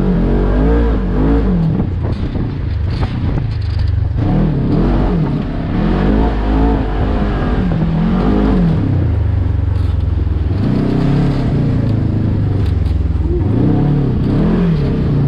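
Offroad side-by-side buggy's engine, heard from the cab, revving up and down over and over with short steadier stretches in between.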